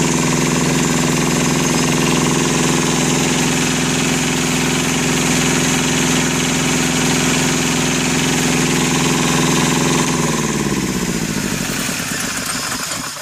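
Two-cylinder Yanmar Thermo King diesel engine of a homemade standby generator running steadily; about ten seconds in it is switched off, and it winds down with falling pitch to a stop near the end.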